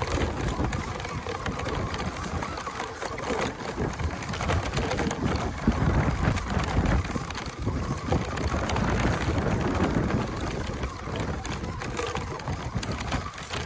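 Toy RC monster truck driving over loose rocks and gravel, with irregular crunching and rattling from its wheels and plastic body. Wind rumbles on the microphone throughout.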